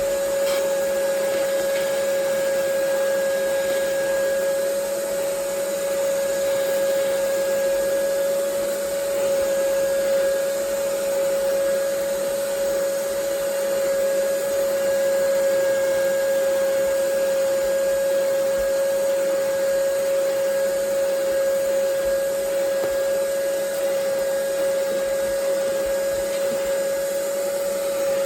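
Ridgid 3-gallon wet/dry shop vac running steadily: a constant motor whine over the rush of air, with no change in speed.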